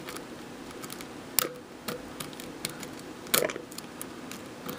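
Lock pick clicking against the pins of a six-pin pin-tumbler lock with serrated pin-in-pin pins as it is picked, a scatter of light metallic ticks with two louder clicks, one about a second and a half in and one about three and a half seconds in.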